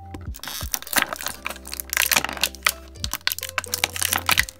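Clear plastic packaging crinkling and crackling in quick, irregular bursts as it is handled and pulled apart, over background music with a steady bass line.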